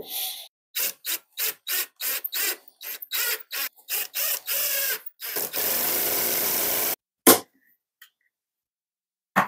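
Ryobi cordless drill driving screws into a wooden block: a string of short trigger pulses, about three a second, then one steady run of about a second and a half. A single sharp snap follows about two seconds before the end.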